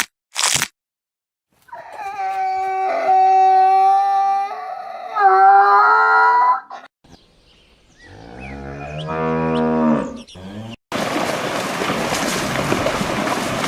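Cattle mooing: two long, fairly high, steady calls, then a lower moo that rises in pitch. A steady hiss of noise takes over near the end.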